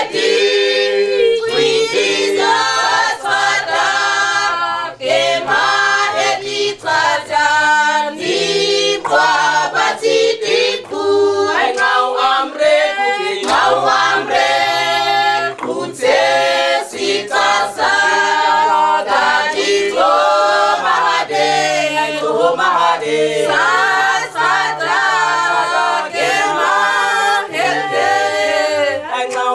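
Mixed choir of men and women singing a cappella in harmony, a low bass line held under the upper voices.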